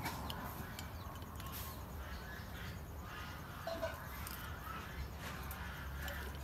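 Quiet eating sounds: a metal spoon clicking against a glass cup and soft mouth sounds as orange agar jelly is eaten, over a steady low outdoor rumble.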